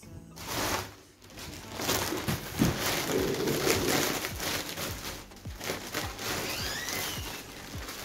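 Thin plastic carrier bags rustling and crinkling as they are handled and groceries are pulled out. The irregular crackle starts after a short quiet spell about a second and a half in.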